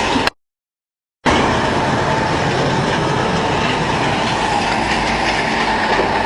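Sand screening and washing plant running: a loud, steady mechanical clatter with a thin whine over it, cut off for about a second near the start before it resumes.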